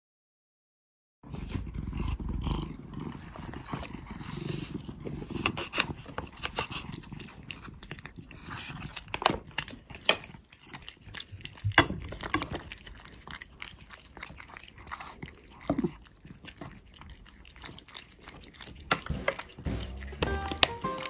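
Two cats eating wet cat food from one bowl, close to the microphone: quick wet chewing, lapping and smacking clicks, with a few short, low, falling sounds from the cats. Music comes in near the end.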